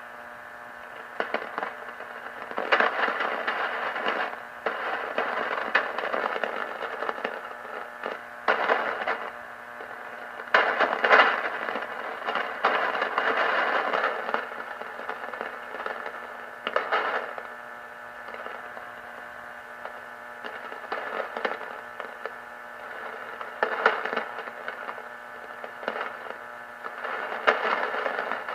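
Lightning static on a Realistic DX-160 receiver tuned to the long wave band around 200 kHz: a steady hiss and hum broken by irregular loud crackling crashes every second or few. These are the crashes of distant thunderstorms, a sign that lightning and rain are on the way hours ahead.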